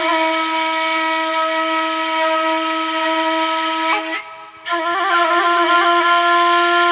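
Solo wind instrument playing a melody: one long held note, a brief break about four seconds in, then ornamented runs of quick notes.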